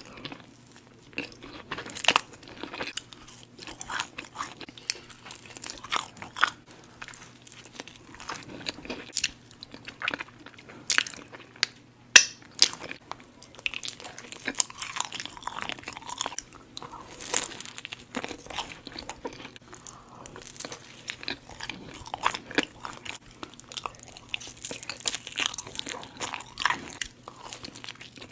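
Eating iced cinnamon rolls: bites into the soft, crisp-edged dough and chewing, with many quick, irregular mouth clicks and smacks.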